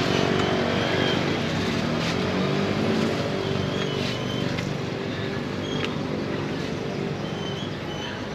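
Street traffic with motorbike engines running close by, a steady engine hum. A few light clicks and taps sound over it.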